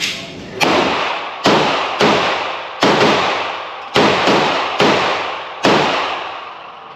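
Seven handgun shots fired in steady succession, roughly one every second, each with a sharp crack and a long echoing tail.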